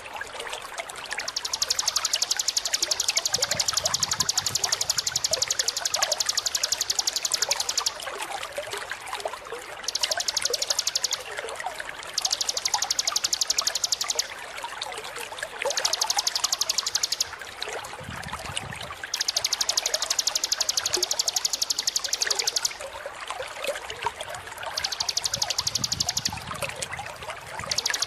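Bar-winged prinia (ciblek) singing a very fast, even, high-pitched trill in bursts of one to six seconds, about seven times, with short gaps between. A steady rushing, trickling background noise runs underneath.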